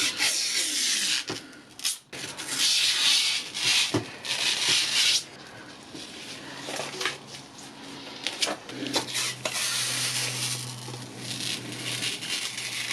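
Rubbing and scraping handling noise in several stretches, with a few sharp clicks and knocks between them.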